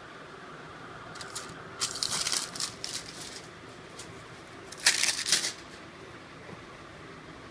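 Packaging being handled: crinkly rustling in two bursts, a longer one a second or two in and a shorter, louder one about five seconds in.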